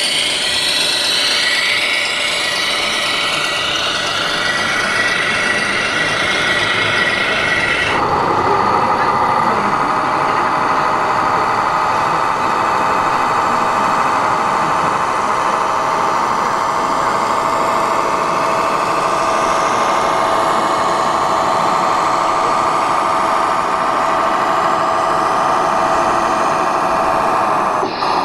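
Radio-controlled scale model trucks' electric drive and gearbox whining. The pitch rises and falls with speed for the first several seconds, then changes suddenly to a steady whine about eight seconds in, with a brief break near the end.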